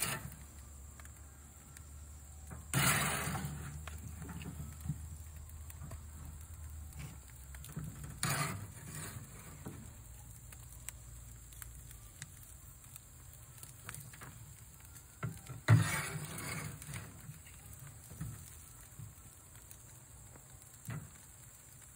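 Metal tongs and a spatula scraping and knocking against a smoker's wire grate as the smoked pig tails are turned: a few short scraping bursts, the loudest about two-thirds through, with faint scattered ticks between.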